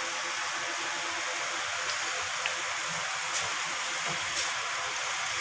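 Malpua batter deep-frying in hot refined oil in a kadai: a steady sizzling hiss with a few faint crackles.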